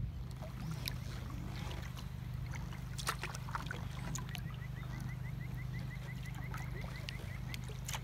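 Kayak paddling: water dripping and splashing off the paddle with a few sharp knocks, over a steady low rumble. From about halfway in, a bird repeats a short rising note about five times a second for a few seconds.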